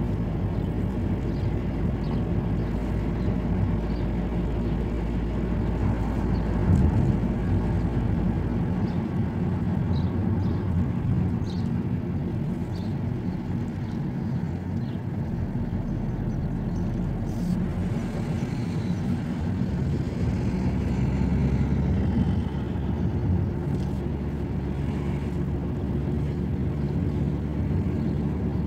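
Car driving on city streets, heard from inside the cabin: steady engine and tyre rumble.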